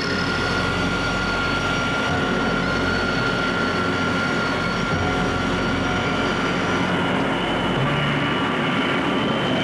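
Jet airliner in flight, its engines running with a dense, steady rush and a steady high whine.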